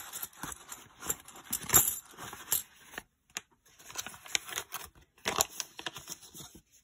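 Kennedy half dollars clinking and clattering as they are tipped out of a paper envelope and spread into a pile, a run of sharp metal clinks with a few louder clacks.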